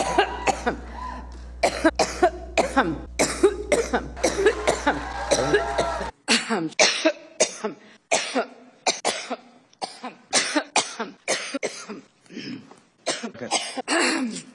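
A woman coughing in a long fit: many short coughs in quick succession, some with throat clearing. A steady low hum sits under the first six seconds and stops abruptly at an edit, after which the coughs go on in a cleaner recording.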